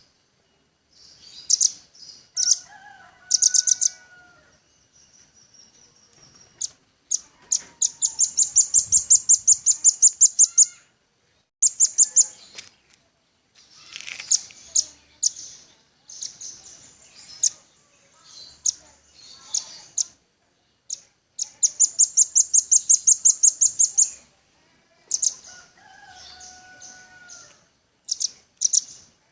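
Velvet-fronted nuthatch calling: high, sharp chips and rapid trills of about ten notes a second, the two longest trills running about three seconds each. A fainter, lower whistled phrase comes about three seconds in and again near the end.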